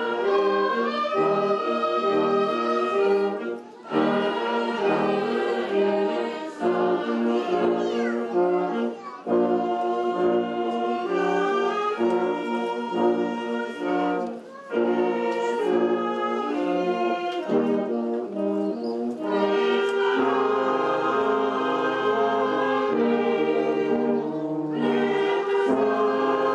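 Brass band playing held chords, with brief breaks between phrases.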